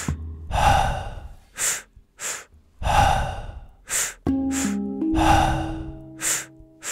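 Paced breathwork breathing in the TwinWave pattern: two short, sharp inhales followed by one longer exhale through the mouth, repeating about every two and a half seconds, three times over. Soft ambient music plays underneath, and its sustained notes come in about four seconds in.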